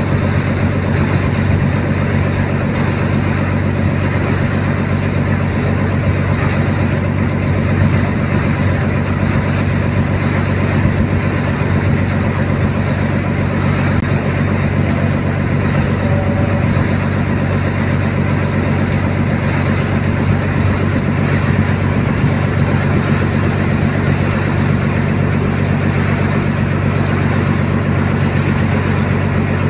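A small boat's engine running steadily underway, heard from on board as a loud, even low drone with a broad hiss of water and wind over it.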